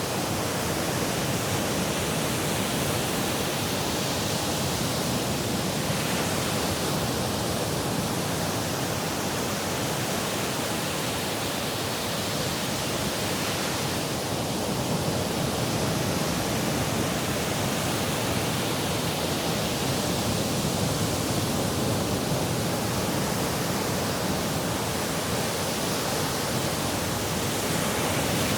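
Sea surf washing on the shore: a steady rushing noise that swells and eases slowly every several seconds.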